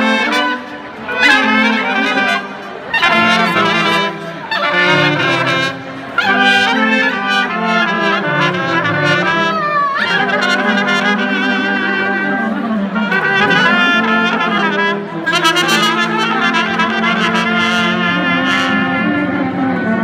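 Balkan brass band playing live: trumpet and low brass carrying a melody over a bass drum. The first few seconds come in short phrases with brief breaks, then the playing runs on without a break.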